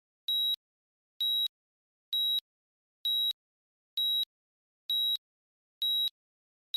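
Digital countdown timer sounding its warning beeps: eight short, high-pitched electronic beeps about one a second, all the same pitch, marking the final seconds of the countdown.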